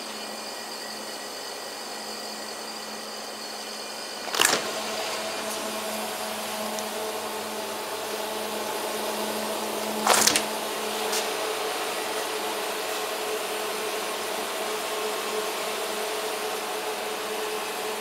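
Steady hum of a GIGA stainless steel refrigerated counter's compressor and condenser fan running. Two sharp knocks break the hum, about four seconds in and again about ten seconds in, and the pitch of the hum changes slightly soon after the second knock.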